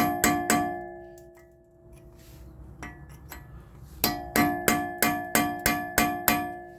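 A hammer taps a punch against the staked lock of a CV axle nut to free it, with ringing metal strikes. Three strikes come early, then a pause of about three seconds, then a run of eight more at about three a second.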